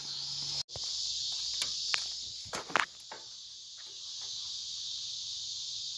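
A steady chorus of insects, an even high-pitched buzz that cuts out for an instant just under a second in. A few light clicks or taps come in the first three seconds.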